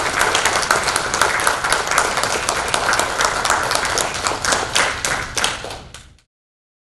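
Audience applauding: many hands clapping at once, thinning out near the end and then cutting off suddenly.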